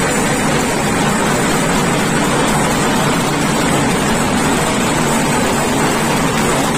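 Steady loud din of a packed street crowd, an unbroken roar of many voices with no single voice or beat standing out.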